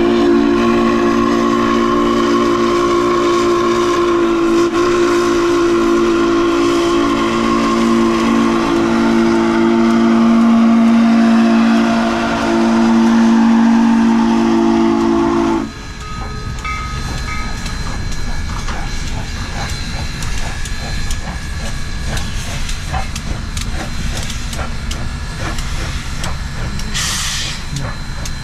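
Steam locomotive No. 148's chime whistle, a loud chord of several tones held for about sixteen seconds and then cut off suddenly. After it the locomotive is heard working steam as the train pulls away, a steady chuffing and rolling noise with a brief hiss near the end.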